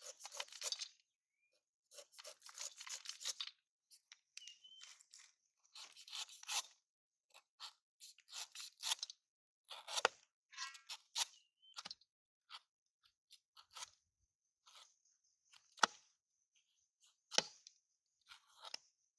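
Large knife shaving the bumpy rind off a whole unripe jackfruit in short, irregular crunching and scraping strokes, with a few sharper knocks near the end.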